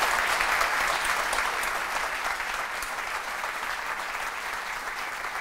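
Audience applauding, loudest at the start and easing off slowly.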